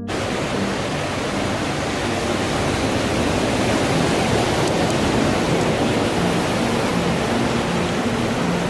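Steady rushing noise of ocean surf on a beach.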